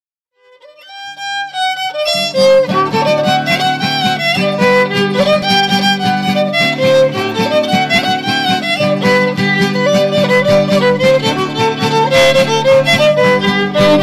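Instrumental background music: a single melody line fades in, and fuller accompaniment with sustained low notes joins about two seconds in.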